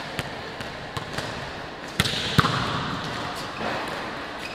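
Volleyballs being struck and bouncing on a hard indoor court floor, a scatter of sharp smacks with the loudest pair about two seconds in, echoing in a large sports hall.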